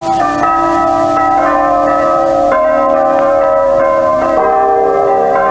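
Church bells ringing as the intro of a recorded song, new strokes about every second over a lingering ring.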